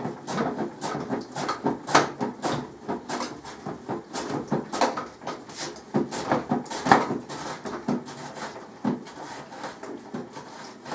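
Potato being rubbed back and forth over the cutting insert of a plastic hand dicer-slicer: repeated scraping strokes with plastic clacks, about two or three a second, the loudest about two and seven seconds in.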